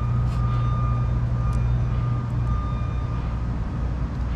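Steady low hum of rooftop air-conditioning machinery running, with a thin high whine above it. One faint click about a second and a half in, as wires are pushed onto the capacitor's terminals.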